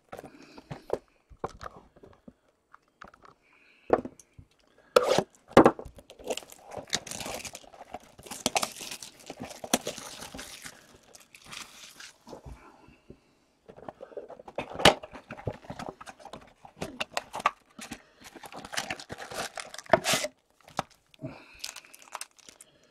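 A cardboard blaster box of 2017-18 Upper Deck Series One hockey cards being torn open, with irregular tearing and crinkling of wrapping and sharp clicks. Its foil card packs rustle as they are handled and tipped out.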